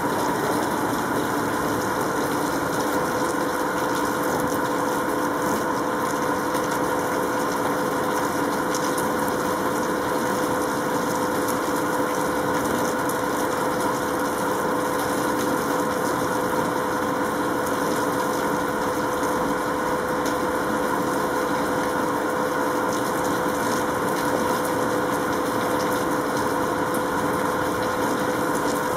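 A steady mechanical hum with several constant tones, like a motor or machine running without change. No thunder or other sudden sound is heard.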